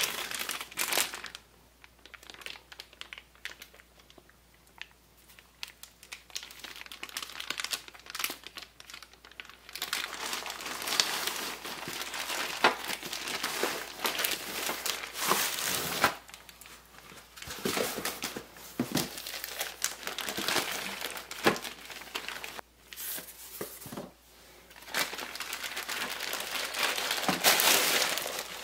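Packaging being handled while unboxing a fan: intermittent rustling and crinkling with a little tearing, in irregular spells with short pauses between them.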